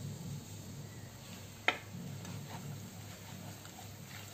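Gram flour frying in hot oil in a pan, with faint crackling ticks and one sharp click about a second and a half in.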